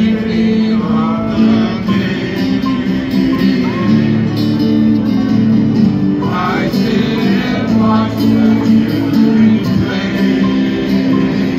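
Live band of many acoustic guitars playing a song together, with a man singing.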